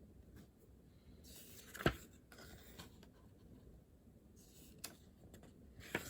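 Pen writing on paper: short scratchy strokes, with a few sharp clicks or taps.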